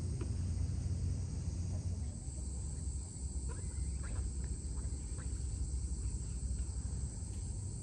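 Insects chirring in a steady high drone over a low rumble, with a few faint short chirps now and then.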